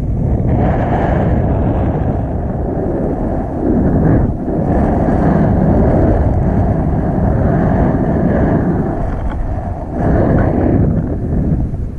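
Wind rushing over the microphone of a camera held out on a selfie stick in tandem paraglider flight: a loud, heavy, low rumble that swells and eases every few seconds.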